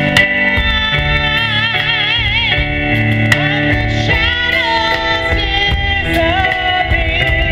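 Live band playing a song: a woman singing with vibrato over electric keyboard and a drum kit.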